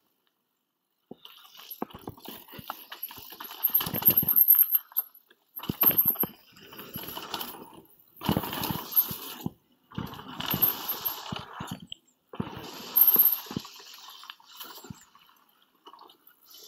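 Mountain bike riding down a dirt freeride trail: a rush of tyre and wind noise in uneven surges, with knocks and rattles from the bike over bumps and landings, cutting out briefly several times.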